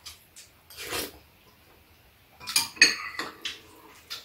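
Metal spoons and chopsticks clinking and scraping against ceramic bowls while eating. There are a few scattered clinks, then a busier cluster of clinks about two and a half to three and a half seconds in.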